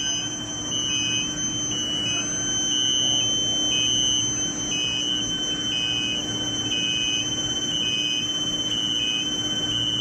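Induction heating furnace running at full power: a steady high-pitched whine from its power supply and coils, flicking between two close pitches about once a second, over a low hum and machine noise.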